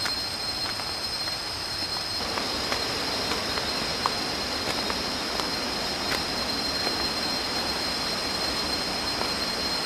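Steady high-pitched insect drone, typical of a forest cicada chorus, over an even rushing hiss, with a few faint clicks.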